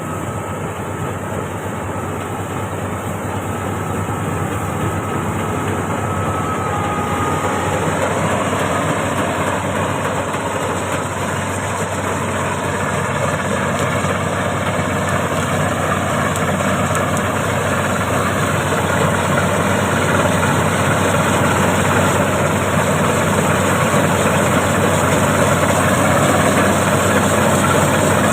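Marksan K-Bos MS-1200 combine harvester running steadily, with a dense mechanical drone that grows gradually louder.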